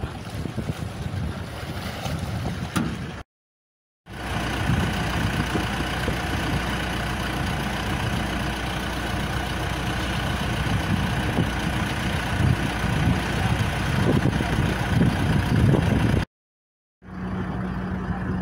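Wind buffeting the microphone over a steady mechanical hum. The sound is broken twice by a brief dead silence, once about three seconds in and again near the end.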